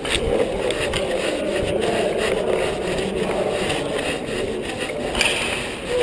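Continuous rubbing and rumbling noise on the microphone of a camera mounted on a unicycle under the rider, with the rider's leg and clothing brushing against it as they ride.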